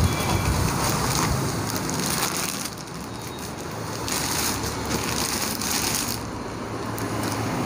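Clear plastic wrapping bag crinkling and rustling irregularly as an air rifle is lifted out of it and handled.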